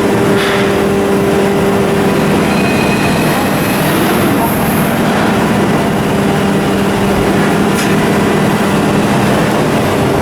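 Ship's diesel engine running at a steady speed: a loud, even mechanical drone with a steady low hum.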